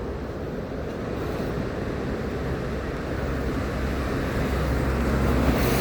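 A vehicle's low, steady rumble that slowly grows louder.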